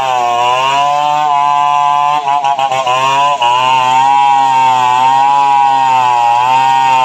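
Diesel engine of a heavy earthmoving machine running under varying load, its pitch rising and dipping. A rapid clattering runs through it from about two to three and a half seconds in.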